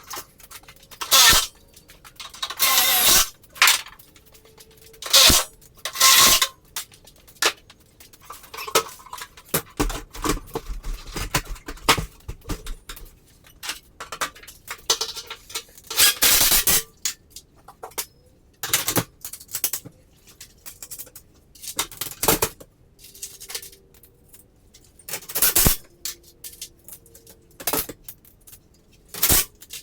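Irregular metallic clinks and knocks, broken by short loud bursts of noise about every one to three seconds, from metal hardware and tools being handled.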